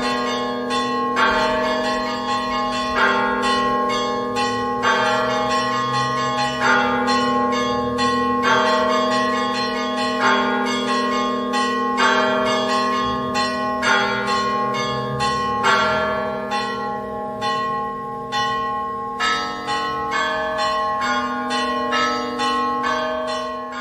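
Church bells ringing in a continuous peal: quick lighter strikes with a heavier strike about every two seconds, over a steady low bell hum.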